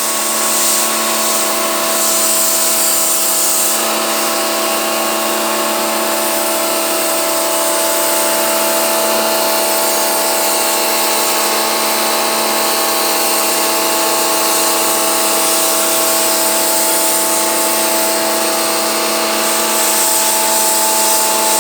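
Electric pressure washer running steadily, its motor and pump humming under the hiss of the water jet spraying an air-conditioner outdoor unit.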